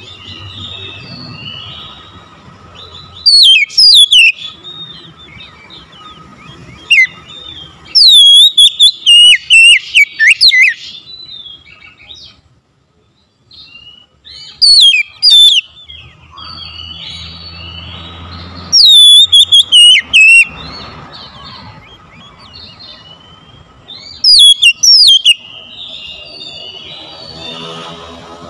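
Oriental magpie-robin singing in loud bursts of rapid, sweeping high whistles, about six phrases with short pauses and softer twittering between them.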